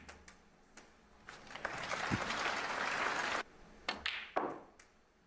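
Audience applause for a couple of seconds that cuts off suddenly, followed by sharp clicks of the cue tip striking the cue ball and snooker balls knocking together.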